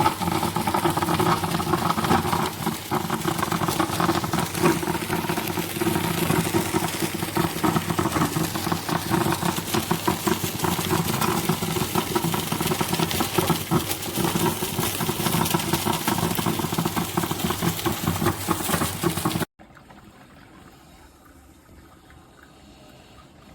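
Electric drip coffee maker brewing, gurgling and hissing as it heats and pushes water through. The sound is loud and steady, then cuts off suddenly about nineteen seconds in, leaving only a faint sound.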